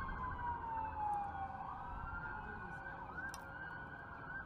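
Several emergency-vehicle sirens wailing at once, their pitches sliding up and down and overlapping, with a fast yelp near the start. A low rumble of city traffic runs underneath.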